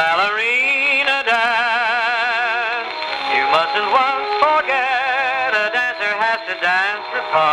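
Thorens acoustic gramophone playing a 78 rpm record: a singer with wide vibrato moving from note to note, with accompaniment. The sound is narrow, with no high treble.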